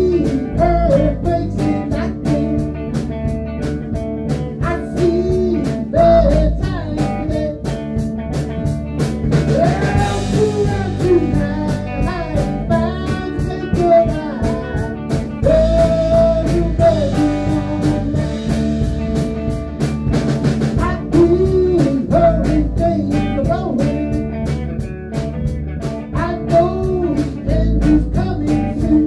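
Band playing a blues-rock tune: electric guitar lead lines that bend in pitch over bass guitar and a Pearl drum kit keeping a steady beat.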